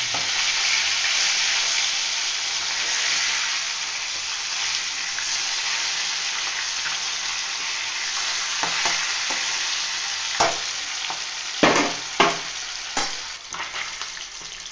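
Katla fish steaks sizzling in hot mustard oil in a metal wok, a steady frying hiss. From about ten seconds in, a metal spatula knocks and scrapes against the pan several times as the pieces are turned.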